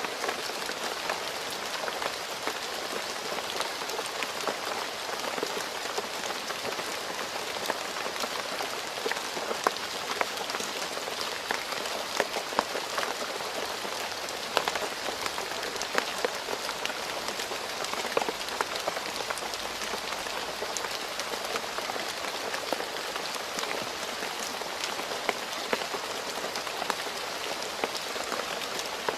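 Steady rain falling on a road surface: a continuous hiss with many sharp individual drop impacts scattered throughout.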